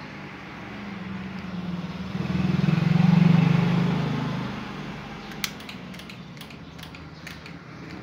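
A motor vehicle passing by, its low rumble rising to a peak and fading away over about four seconds. A quick series of sharp clicks follows.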